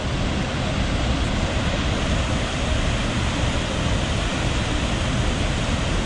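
Steady rush of Aharbal waterfall, water plunging from the rock ledge into its pool below.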